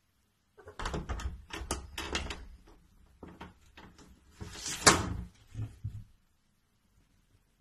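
A cat leaping at a door and hanging from its lever handle: a run of knocks and scrabbling against the door and handle. About five seconds in comes the loudest sharp click, the latch releasing as the door swings open.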